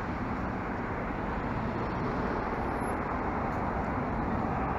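Road traffic: cars driving past, a steady rumble of engines and tyres that grows slightly louder toward the end.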